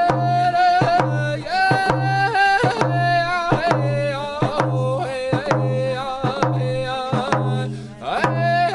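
Several round hand drums struck together in a steady beat, about two strokes a second, each stroke with a low boom, while voices sing a drum song over them.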